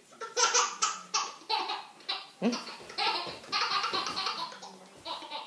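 Toddler laughing hard: a run of short laughs about twice a second, then longer peals of laughter from about three seconds in.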